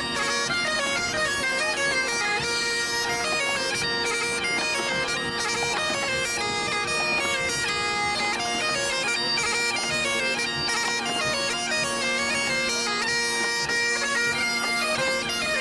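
Breton biniou braz (great bagpipe) and bombarde playing a tune together over the bagpipe's steady drones.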